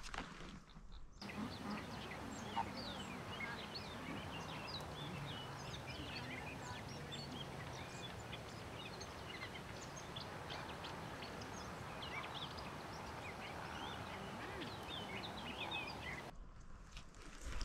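A large flock of water birds calling: many short, overlapping calls over a low, steady honking chatter. It starts about a second in and cuts off abruptly near the end.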